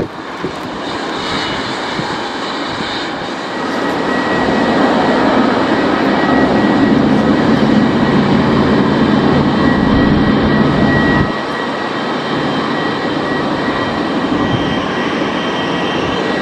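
Boeing 777's jet engines running at taxi power: a steady rumble with a thin high whine. It grows louder about four seconds in and drops off abruptly about eleven seconds in.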